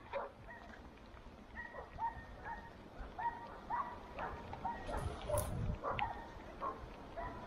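Hunting dogs giving a string of short, yelping barks at irregular intervals, the cry of dogs working a wild boar's bed. A brief low rumble comes about five seconds in.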